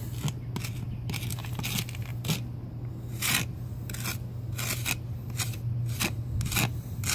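Wire brush scraping excess lime mortar from freshly pointed brick joints in irregular short strokes, about one or two a second, over a faint steady low hum.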